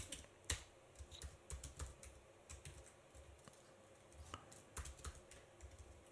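Faint typing on a computer keyboard: irregular keystrokes, a few close together, then short pauses.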